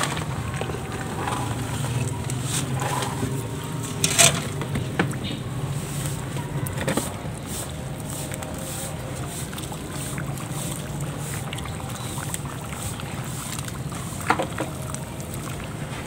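Dry powdered clay poured into a tub of water and crumbled by hand, the water sloshing as it is worked. There are sharper splashes about four seconds in and again near the end, over a steady low hum.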